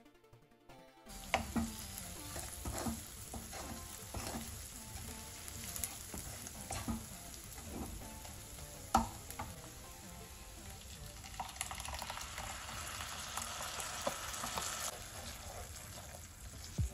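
Eggplant and onion masala sizzling in oil in a kadhai, stirred and scraped with a spatula that taps sharply on the pan now and then. The sizzle grows stronger for a few seconds past the middle, then drops off near the end.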